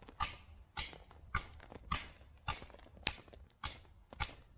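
Beavercraft carving adze chopping into a log in a steady rhythm, about eight sharp strokes a little under two a second, as it slices out the hollow of a bowl.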